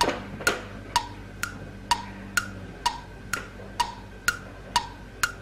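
Steady tick-tock ticking, about two crisp wooden-sounding ticks a second alternating between a higher and a lower pitch, like a clock's countdown tick.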